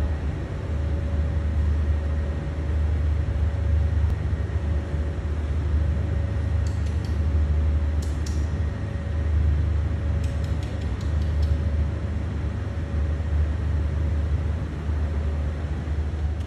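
Steady low rumble with a faint steady hum over it, and a few light clicks around the middle.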